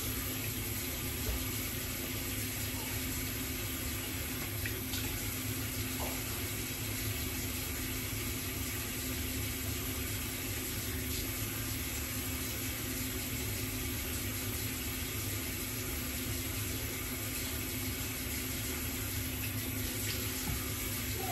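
Water running steadily from a tap as wet hair is held under it.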